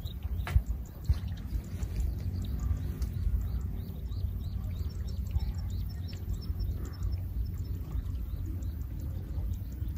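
Low, uneven wind rumble on the microphone, with a small bird chirping rapidly in quick repeated notes for several seconds mid-way and a couple of light clicks near the start.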